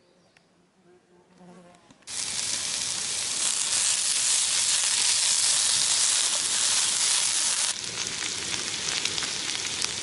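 Green peppers and onions frying in a pan on a backpacking gas stove, with a spatula stirring through them. The sizzle starts suddenly about two seconds in, steady and hissy, then drops a little near the end and turns more crackly.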